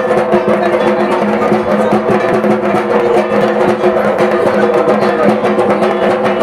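Percussion-driven music: fast, dense drum strokes over steady held tones, at an even loudness throughout.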